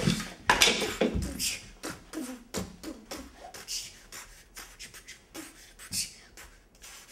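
A girl beatboxing: irregular mouth clicks, pops and short vocal hums. A clatter at the very start comes from a folding director's chair knocked over.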